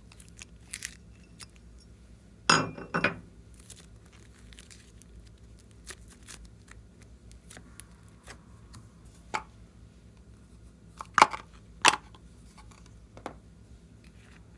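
Clear slime being worked by hand, giving off sticky clicks and snapping pops. There is a crunchy burst about two and a half seconds in and two sharp pops near the end.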